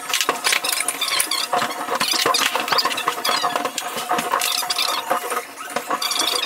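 Fast-forwarded sound of a stunt scooter being assembled by hand: a dense, rapid clatter of clicks and taps from tools and metal parts.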